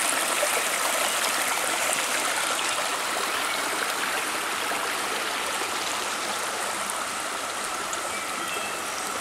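Flowing creek water rushing steadily, an even hiss that eases slightly over the stretch.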